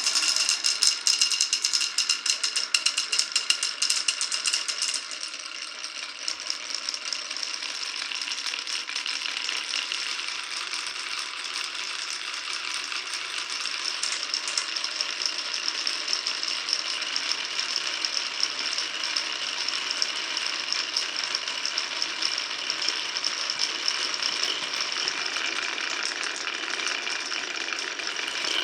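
Many marbles rolling and clattering along a wooden marble run: a dense, loud run of quick clicks at first, easing after about five seconds into a steady continuous rattle.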